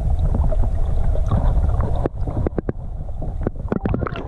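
Wind buffeting the microphone on a boat: a loud, rough low rumble that thins out about two seconds in, with irregular gusty knocks.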